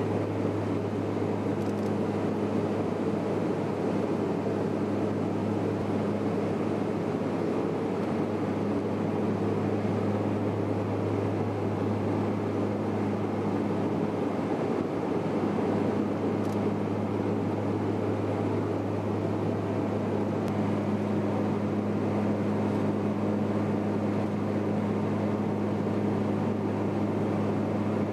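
Steady drone of an aircraft's engines heard inside the cabin, a constant low hum with noise above it.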